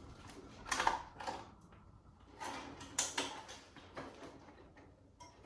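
Handling noise from fitting an animatronic's mechanism onto its support poles: a handful of separate knocks and scrapes, the loudest about three seconds in.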